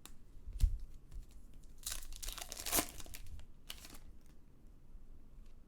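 Trading card pack wrapper being torn open and crinkled by hand, with a light knock about half a second in, a longer tearing rustle around two to three seconds in and a short one just before four seconds.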